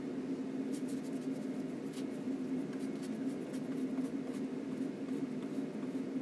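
Steady low hum, with faint, irregular scratchy ticks of a long flat paintbrush working oil paint onto a linen panel.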